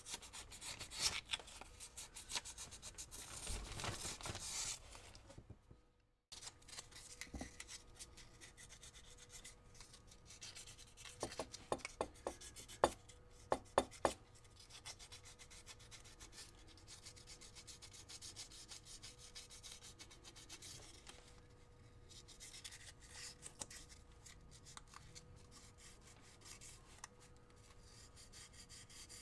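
A small piece of sandpaper rubbed by hand back and forth over a pool cue's epoxy-coated forearm, a soft scratchy rubbing that is loudest in the first few seconds. A few sharp clicks come about halfway through.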